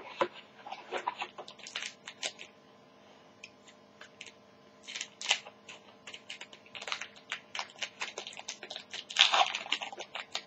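Wrapper of a trading card pack crinkling and crackling as it is handled and torn open by hand, in irregular bursts of small crackles, loudest about nine seconds in.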